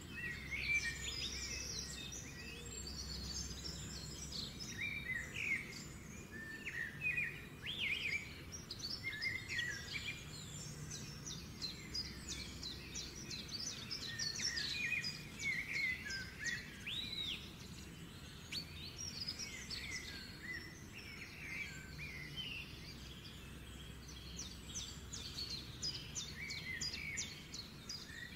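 Small birds chirping and trilling, many short overlapping calls and whistles throughout, over a faint steady low hum.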